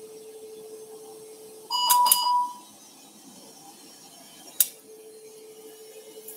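Electrosurgical (electrocautery) unit tones during tissue dissection. A steady lower tone stops about a second and a half in. A loud, higher beep tone with a couple of clicks follows for under a second. A sharp click comes a few seconds in, and the lower tone then resumes.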